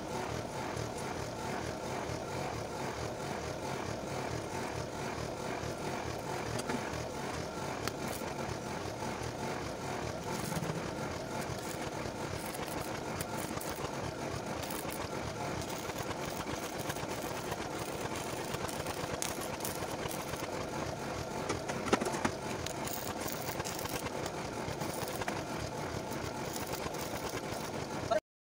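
Steady mechanical running noise, like a small engine or motor, with a few sharp clicks along the way; it cuts off suddenly near the end.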